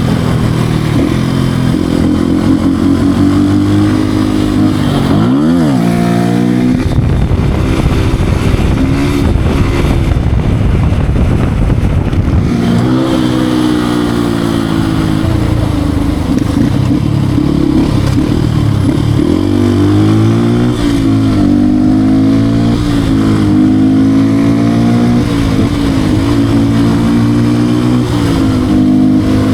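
Beta RR 125 R supermoto's 125 cc single-cylinder engine being ridden hard, its revs climbing and dropping over and over through throttle changes and gear shifts, with a sharp dip and rise about five seconds in. For a few seconds in the middle the engine's note is buried in a rushing haze of noise.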